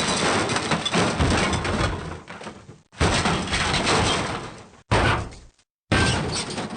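A run of short, noisy sound effects edited back to back. Each one starts suddenly and dies away, and brief dead-silent gaps separate them, about four in all.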